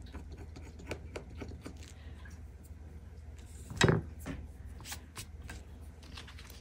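Small scratches and taps of a pointed tool on a cardstock savings-challenge card, then the card and paper being handled, with one louder knock about four seconds in.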